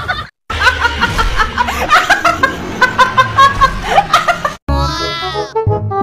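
A woman laughing and snickering for about four seconds. Near the end comes a quick sound effect that falls steeply in pitch, then music.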